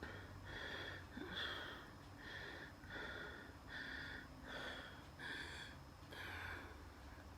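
A person breathing fast and laboured during an asthma attack, each breath carrying a high-pitched wheeze. There are about nine breath sounds in seven seconds, coming at a steady pace.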